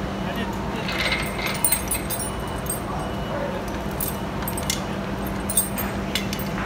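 Steel load chain of a manual chain block clinking and rattling in irregular, scattered clinks as it is handled, over a steady low hum.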